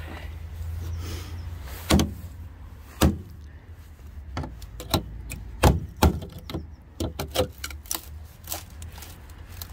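Claw hammer knocking on the rusted steel sill of a Talbot Express campervan, testing how rotten it is. Several sharp knocks, the loudest about two, three and six seconds in, then a quicker run of lighter taps and crunches as the claw picks at the corroded metal.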